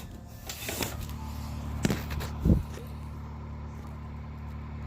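A low steady hum, with two dull thumps about two and two and a half seconds in, the second one louder: an unexplained noise in the house, heard as coming from downstairs.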